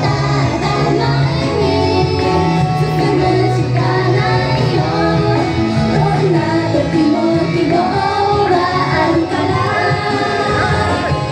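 An idol group's live pop song: young women's voices singing into handheld microphones over loud, steady pop music.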